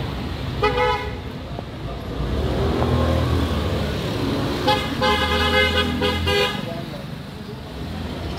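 Street traffic: passing engines running, with vehicle horns honking, a short honk under a second in and a longer honk of about a second and a half near the middle.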